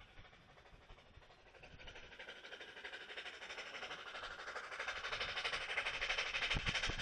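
Narrow-gauge steam locomotive approaching, a quick, even beat of exhaust chuffs growing steadily louder from about two seconds in.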